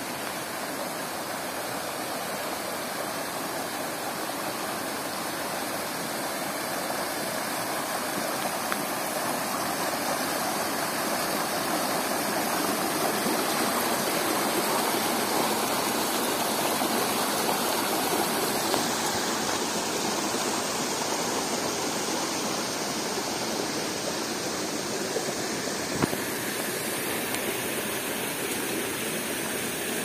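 Stream water rushing and tumbling over rock slabs in a small cascade: a steady rush that grows louder toward the middle and eases off a little near the end.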